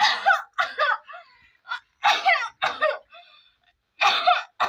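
A woman coughing hard in repeated harsh bursts, roughly in pairs. It is a staged coughing fit, faking coughing up blood as a prank.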